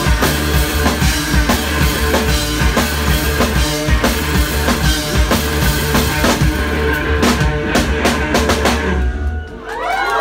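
A live rock band playing loud and fast, a drum kit driving it with bass drum, snare and cymbals. The music stops abruptly near the end.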